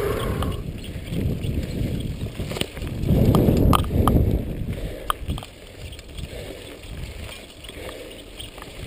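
Mountain bike riding over a dirt singletrack: tyre and trail rumble mixed with wind buffeting on the microphone, and sharp rattles and clicks from the bike over bumps. It is loudest about three to four seconds in.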